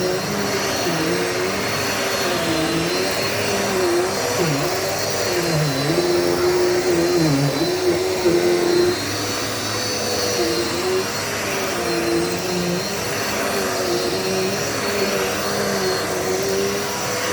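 Dirt Devil Multi-Surface vacuum cleaner running continuously while being pushed over the floor picking up dirt; its motor pitch wavers and dips repeatedly, most deeply around the middle.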